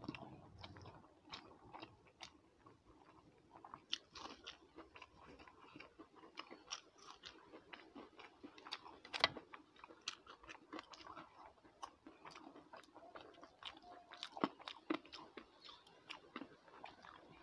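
A person eating a rice meal by hand: chewing, with many small sharp clicks scattered throughout and the loudest one about nine seconds in.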